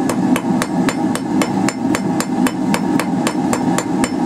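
Hand hammer striking a hot quarter-inch steel bar on the anvil with light, rapid blows, about four a second, the anvil ringing with each hit. These are planishing blows that round the bar's squared corners as it is rotated.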